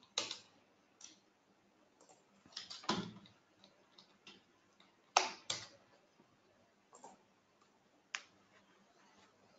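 Scattered clicks and taps of a computer keyboard and mouse, one click or a quick pair every second or so.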